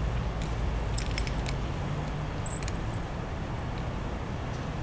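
Steady low rumble of urban night background noise, with a few faint clicks about a second in and again about two and a half seconds in.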